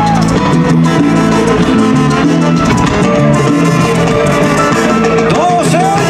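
Live salsa band playing, with drum kit and keyboard.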